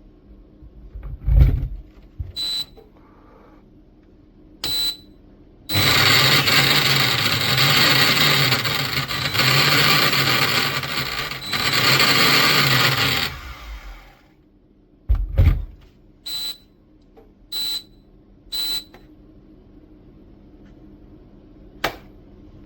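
Jug blender's control panel beeping twice, then its 2000 W motor running for about seven seconds, loudness rising and falling a few times, before winding down. More single beeps and a thump follow.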